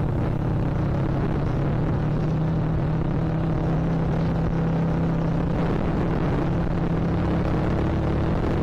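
Yamaha Vixion Advance's 150 cc single-cylinder engine running at a steady cruise, with strong wind rumbling on the microphone.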